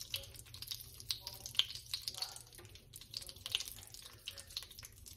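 Brown sugar melting and browning in a pan on the stove, bubbling and sizzling with irregular crackles and pops.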